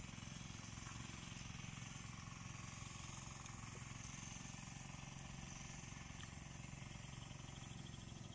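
A steady low drone, like a distant engine, runs under faint outdoor background noise, with a few soft clicks.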